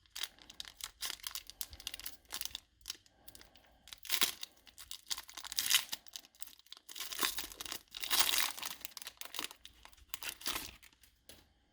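A Pokémon TCG Rebel Clash booster pack's foil wrapper being torn open and crinkled, in a run of irregular crackling rips and rustles.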